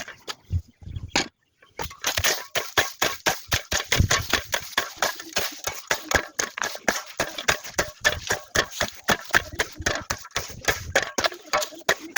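Grass and weeds being cleared by hand with a tool: rapid, regular chopping or scraping strokes, about five a second, starting about two seconds in after a few scattered clicks.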